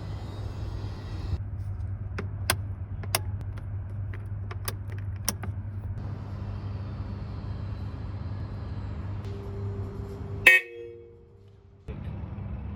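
Mercedes-Benz 190 (W110) engine idling with a steady low hum. Several sharp clicks come a couple of seconds in, and there is one loud knock near the end.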